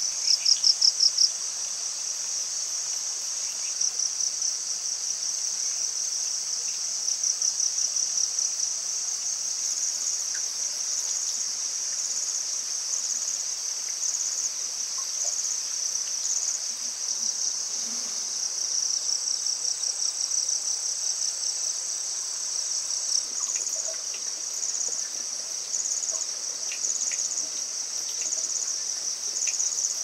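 Chorus of forest insects: a steady, high-pitched pulsing trill, with a louder run of about five rapid chirps in the first second or so.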